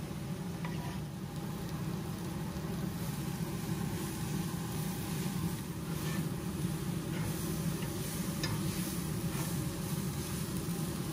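Chicken strips and bell peppers sizzling in a hot cast-iron skillet while a silicone spatula stirs them, with a few light scrapes. A steady low hum runs underneath.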